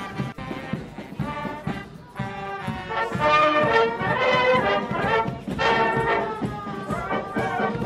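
Marching band brass, trumpets and trombones, playing a tune in the street, getting much louder about two seconds in.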